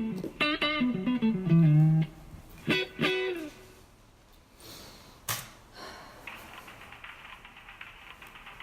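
Electric guitar playing a short run of notes that steps down in pitch, then two chords struck about three seconds in that ring out and fade. A sharp click comes a little after five seconds, followed by a faint steady hiss.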